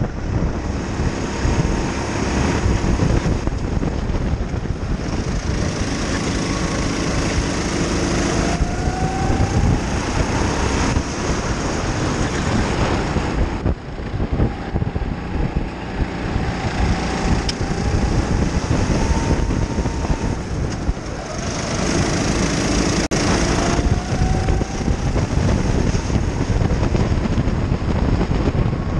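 Racing kart engine heard from on board at speed: its pitch climbs several times as it accelerates out of corners and drops back as it slows into them, over heavy wind noise on the microphone.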